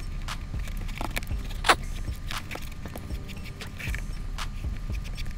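Shoelace and sneaker handling: irregular rustling with many short clicks and ticks as a flat lace is pulled through the eyelets of an Air Jordan 6.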